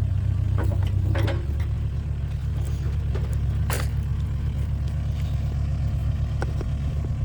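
Freshly rebuilt Stihl MS 390 two-stroke chainsaw idling steadily after a cut, with a few light clicks and clatter. The saw is not yet fully broken in.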